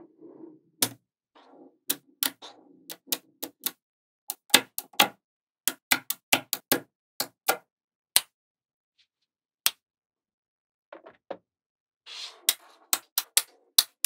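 Small magnetic balls clicking sharply and irregularly as walls and strips of them are snapped into place, with short stretches of rattling as the balls shift against each other. The clicks pause for about three seconds after the middle, then resume.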